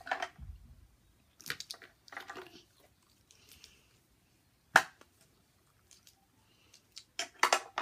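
Plastic toy van and figure clicking and knocking as they are handled, with one sharp click about five seconds in and a quick run of clicks near the end.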